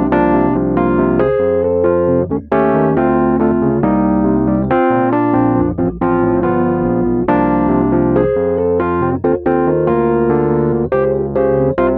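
Fender Rhodes electric piano played in a steady stream of two-handed chords. Its tines are voiced to pure fundamental: each tine sits deep, centred on its pickup, the setting that brings out the fundamental over the overtones.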